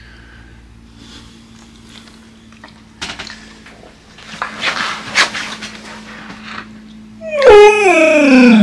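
Rustling of a Samoyed's fur and the bedding close to the microphone, then, about seven seconds in, the Samoyed lets out a loud, drawn-out howl-like moan that slides down in pitch as it is woken.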